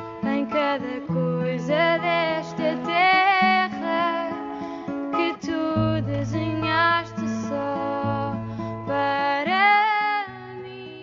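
Music: a melody over plucked strings and held bass notes, fading out near the end.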